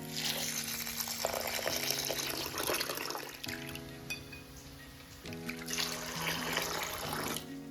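Water running in two stretches of a couple of seconds each, the second starting about six seconds in, over background music.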